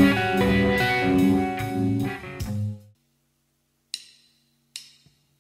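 Stratocaster-style electric guitar played through an effects pedalboard and an amp simulator; the notes ring out and stop about three seconds in. Two short clicks follow in the silence.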